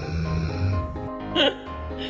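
Background music with held tones over a low pulse. About one and a half seconds in, a brief cry slides quickly down in pitch.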